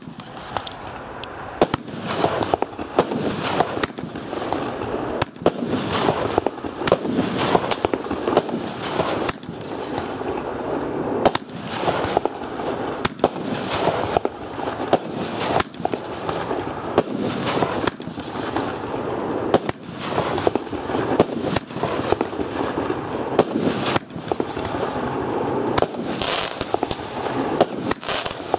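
Lesli 'Royal Rain' firework shooting shot after shot without a break: many sharp bangs of launches and bursts over a dense crackling of bursting stars.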